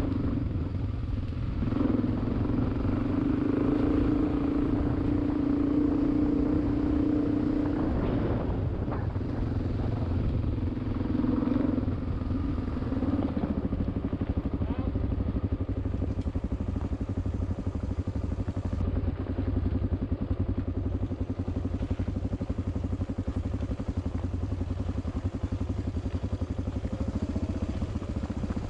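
Motorcycle engine running while riding along a track. The engine note shifts a few times in the first half and then holds steady.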